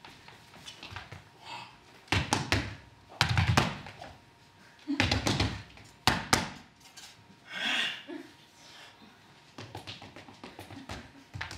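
Tap shoes striking and stamping on a hard stage floor: irregular clusters of loud heavy stamps with sharp clicks over the first half, then lighter, quicker taps near the end.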